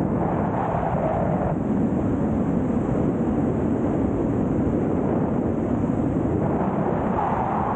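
Steady rush of freefall wind buffeting the microphone of a camera worn by a wingsuit pilot in flight, its tone dropping slightly about a second and a half in.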